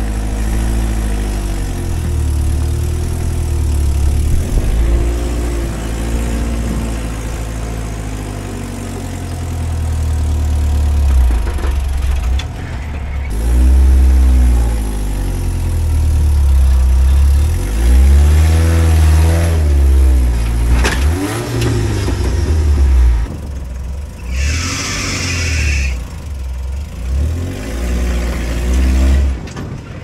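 Off-road truck engine revving in repeated rising-and-falling bursts while crawling a rock obstacle, over a steady low rumble. A sharp knock comes about two-thirds of the way through, and a brief loud hissing rush follows near the end.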